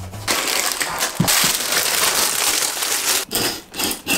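Plastic film wrapping crinkling and tearing as it is handled and cut open, with a couple of short pauses after about three seconds.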